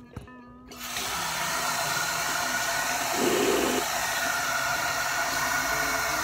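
Bathroom sink tap running, water pouring into the basin; it starts about a second in and runs steadily, with a brief louder splash about three seconds in.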